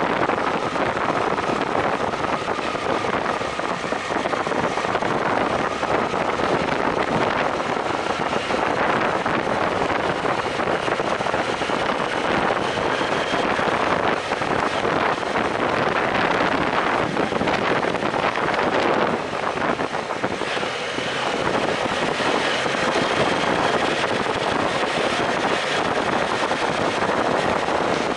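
BMW F800GS motorcycle's 798 cc parallel-twin engine running steadily while riding through rock-cut tunnels, mixed with wind noise on the microphone.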